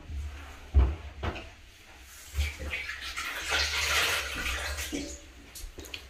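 Wet cloth wiping a glass shower screen, rubbing over the damp glass to clear off vinegar that was left to soak on limescale. Two short knocks come about a second in, and the rubbing grows louder from about two seconds in before easing off near the end.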